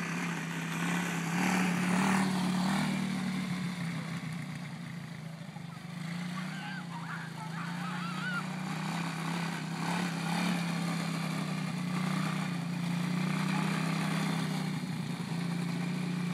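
ATV engine running at a steady pitch, growing a little louder and softer as the machine is ridden around, with a few short chirps in the middle.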